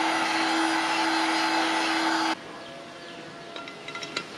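Black & Decker heat gun blowing hot air into an aluminium crankcase bearing seat to expand it, its fan motor humming steadily, switched off sharply about two seconds in. Near the end come a few light metallic clicks as the ball bearing is set into the warmed seat.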